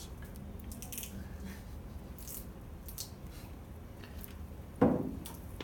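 Quiet room with faint small clicks and rustles from gloved hands handling a varnish bottle and a plastic cup. About five seconds in there is a single sudden loud sound that fades quickly.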